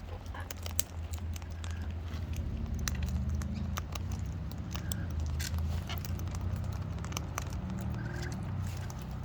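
Scattered small clicks and taps of a cockatoo cracking and picking at seed, over a steady low rumble.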